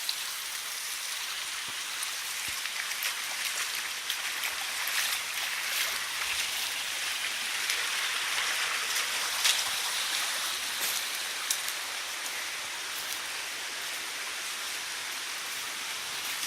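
Running water of a woodland stream: a steady rushing hiss, a little stronger in the middle, with scattered sharp ticks over it.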